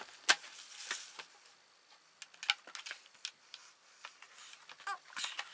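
Quiet, scattered light clicks and taps of frame-tray jigsaw puzzle boards and pieces being handled and set down on a table.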